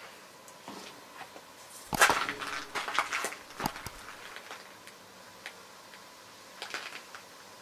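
A few short, sharp clicks and knocks: a cluster about two to four seconds in, and a fainter one near the end.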